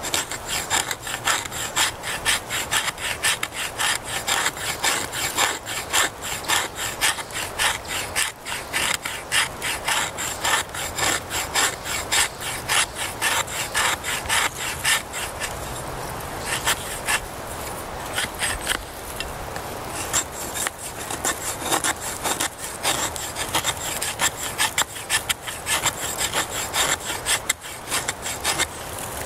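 The spine of a Spyderco Bushcraft knife scraping along a wooden stick in quick, repeated strokes, shaving off fine wood curls for fire tinder.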